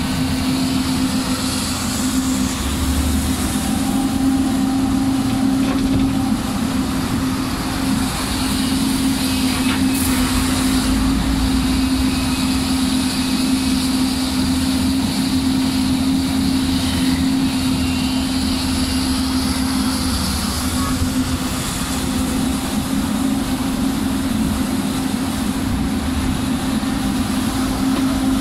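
Heavy diesel earthmoving machinery running steadily: a Doosan DX300LCA crawler excavator close by and a Caterpillar 140K motor grader working. The combined engine drone is loud and constant, with a steady low hum over a deeper rumble.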